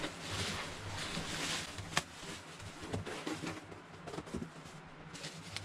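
Bubble wrap crinkling and rustling as a wrapped item is pulled out of a cardboard box, loudest in the first couple of seconds, then fainter handling with a few sharp clicks and knocks, one about two seconds in and several near the end.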